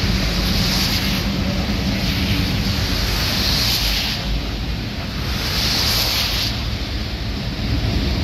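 Freight train of covered hopper cars rolling past: a steady rumble of wheels on rail, with a hiss that swells twice in the middle.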